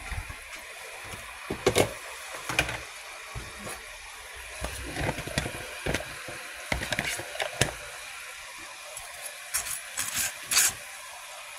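Scattered knocks and clatter of kitchen items being handled on a countertop, over a steady hiss; the knocks come thickest near the end.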